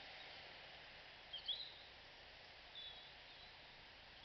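Faint background hiss with two short, high bird chirps: a louder one about a second and a half in and a fainter one just before three seconds.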